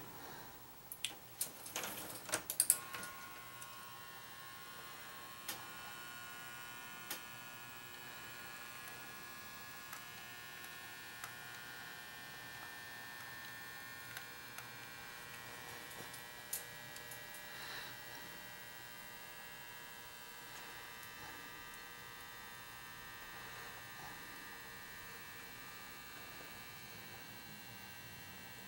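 KitchenAid toaster switched on and heating: a faint, steady electrical hum with a thin high whine that starts about three seconds in, after a few clicks, with occasional faint ticks as the element heats up.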